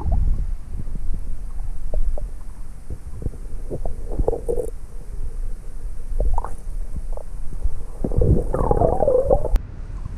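Muffled underwater sound from a camera held below the surface of a lake: a low rumble with scattered knocks as a hand stirs the sandy bottom, and a louder stretch about eight and a half seconds in.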